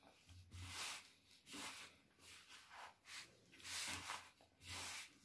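Hand squeezing and rubbing crumbly mathri dough of flour, semolina and ghee in a plastic bowl: faint scrunching strokes, about one a second.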